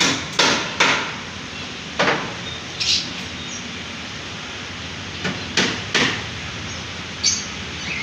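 About eight sharp knocks at uneven intervals, some a fraction of a second apart, over a steady background noise.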